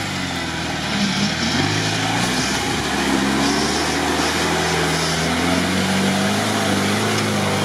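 Lifted MEGA-UAZ off-roader on huge mud tires, its engine revving up and down under heavy load while the rear wheels spin and dig into a steep mud bank, flinging mud.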